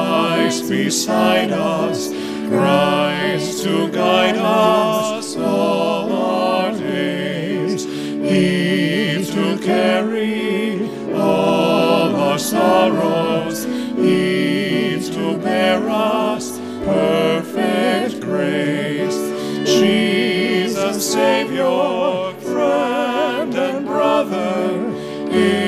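A hymn sung with vibrato over a steady held accompaniment, the verses running on without a break.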